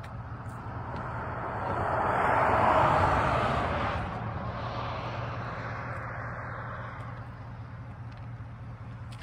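A vehicle passing by. Its noise swells to a peak about three seconds in and then fades away, over a steady low hum.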